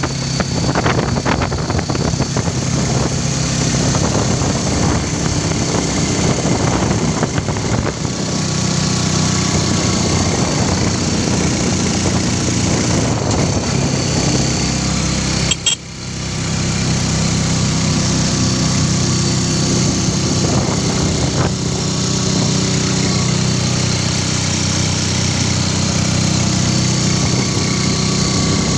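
Motorcycle engine of a tricycle (motorcycle with sidecar) running steadily on the move, with a steady rush of wind and road noise. The sound drops out briefly about halfway through.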